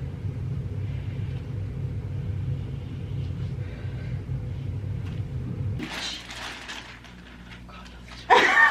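A steady low rumble that stops about six seconds in, followed by a brief rustling noise; a voice starts just before the end.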